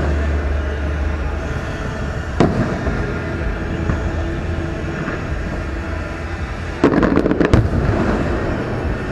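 Distant fireworks display: a single boom about two and a half seconds in over a steady low rumble, then from about seven seconds a rapid string of crackling reports as a barrage goes up.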